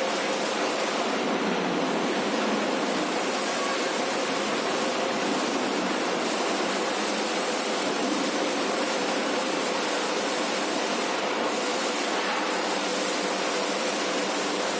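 «Buran» milling-rotary snowblower working: a steady rushing machine noise with a faint steady hum.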